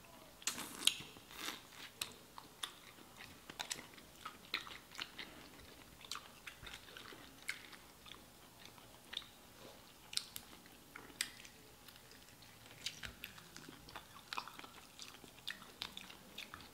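Close-miked eating: two people biting and chewing crispy fried chicken wings, with irregular sharp crunches and chewing sounds.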